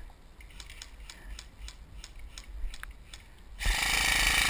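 Faint ticks about three a second, then, about three and a half seconds in, a KWA M4 airsoft electric gun firing full auto close by: a loud, steady, fast buzzing rattle as the gearbox cycles.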